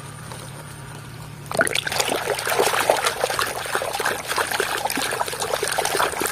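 Muddy, soapy water splashing and sloshing in a plastic basin as a hand scrubs toys with a sponge, starting suddenly about one and a half seconds in.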